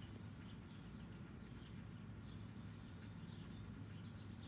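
Faint ambience: small birds chirping in many short, high calls, more often in the second half, over a steady low hum.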